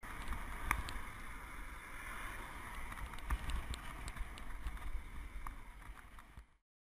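Steady rushing noise with a low rumble and scattered sharp clicks, cutting off suddenly about six and a half seconds in.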